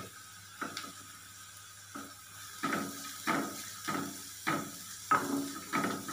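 Spatula stirring chopped cabbage and onion in a kadhai on the stove, scraping the pan in short strokes: a few scattered at first, then regular, about one every two-thirds of a second.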